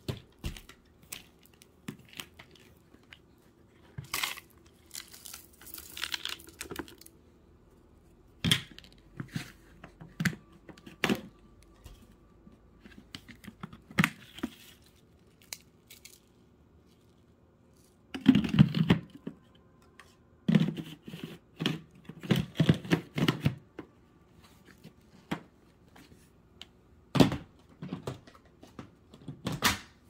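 Irregular rustling, crinkling and light knocks of dust, lint and dried chickpeas being handled and dropped onto a carpet, with no vacuum cleaner running. The densest, loudest rustling comes in clusters a little past halfway.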